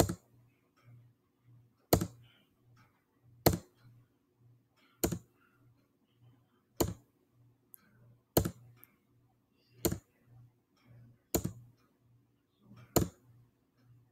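Single sharp clicks at a computer, about one every one and a half seconds, nine in all, over a faint low hum.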